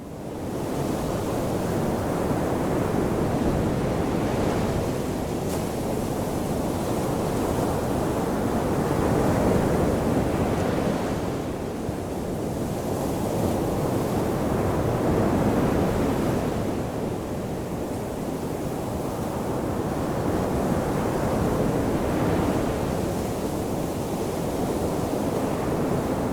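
Ocean waves washing onto a shore: a steady wash of surf that swells and eases about every six seconds. It fades in from silence within the first second.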